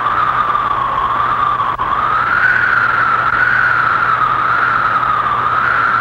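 Howling-wind sound effect: a single whistling tone that wavers slowly up and down over a steady hiss and a low hum.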